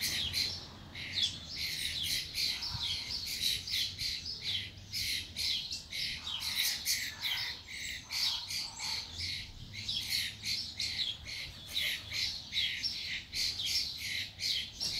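A crowd of birds calling without a break: a dense stream of short, high calls, several a second, overlapping one another. It is the agitated calling of birds gathered around two birds fighting.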